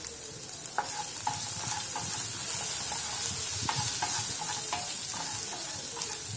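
Sliced ivy gourd sizzling in hot oil in a non-stick frying pan. A wooden spatula stirs it, knocking and scraping against the pan about ten times.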